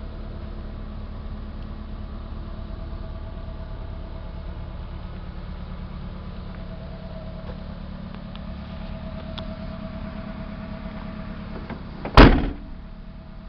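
The rear swing-out tailgate of a Toyota RAV4, carrying the spare wheel, slammed shut once with a single loud bang about twelve seconds in, over a steady low hum.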